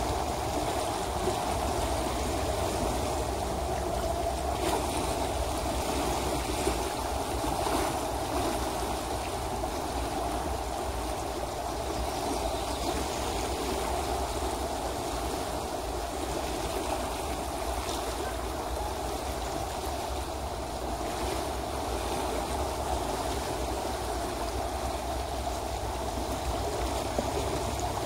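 The Logan River running over choppy shallows: a steady, even rush of flowing water.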